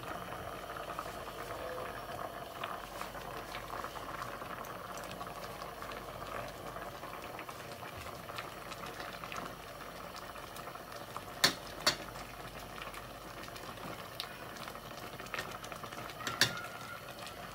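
Sinigang broth bubbling steadily in a stainless steel pot as a metal ladle pushes sweet potato leaves down into it. The ladle knocks against the pot twice in quick succession about two-thirds of the way through and once more near the end, the last knock ringing briefly.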